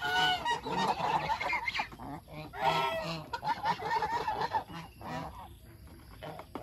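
Domestic geese honking repeatedly, with loud calls at the start and again about three seconds in and shorter honks between.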